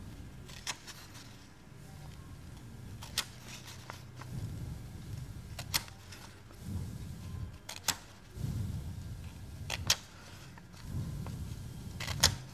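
Burnt incense stick (agarbatti) punching holes through the printed circles of a paper answer sheet, one at a time: a sharp click as each hole goes through, six in all, roughly every two seconds. Soft low rustling of the paper and hands runs between the clicks.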